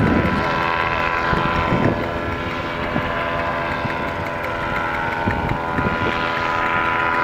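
Paramotor engines and propellers droning steadily overhead, with wind buffeting the microphone.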